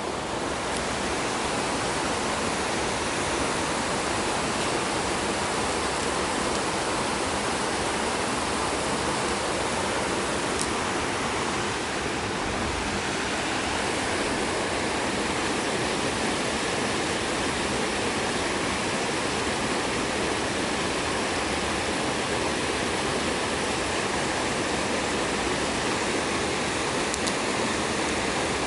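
Waterfall's falling water rushing steadily, an even, unbroken hiss.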